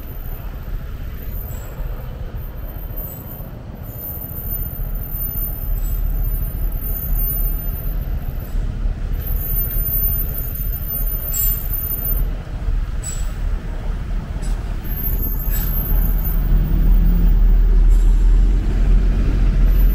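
Road traffic heard from a moving vehicle: a steady low rumble that grows louder in the second half, with a few short hisses near the middle.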